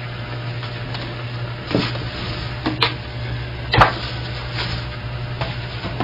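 Handling sounds of work on a banjo pot's hoop and tension hooks: three sharp clicks about a second apart in the middle, then a few fainter ones, over a steady low hum.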